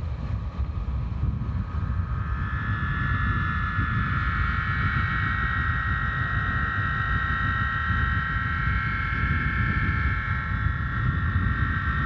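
Homemade ten-foot Aeolian harp with 20 fishing-line strings on a 3-inch plastic water pipe, sounding in the wind: several high, steady overlapping tones that swell about two seconds in. A low rumble of wind on the microphone runs under them.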